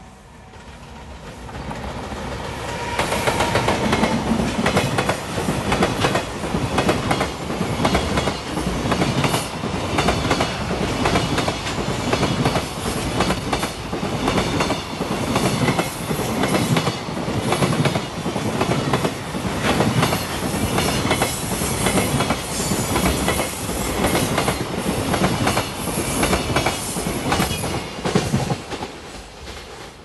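JR Freight EF210 'Momotaro' electric locomotive and its long container freight train passing close by, building up over the first few seconds. Then a steady rhythmic clickety-clack of wagon wheels over the rail joints that eases off near the end.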